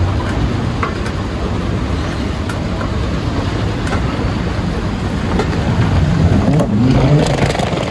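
Steady low rumble of wind buffeting the microphone over background hum, with a brief wavering low tone near the end.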